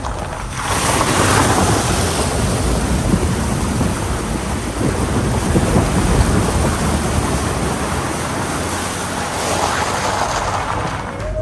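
A car fording a shallow river: water splashing and rushing hard against the front wheel and body, over the engine's low running. Near the end the car leaves the water and rolls onto gravel.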